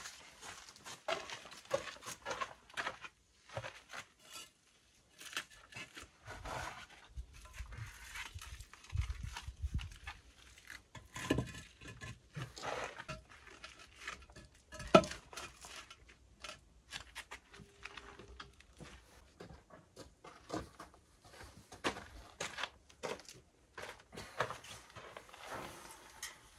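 Concrete blocks being handled on a dirt floor: footsteps, scraping, and blocks clunking as they are stacked, with one sharp knock about fifteen seconds in.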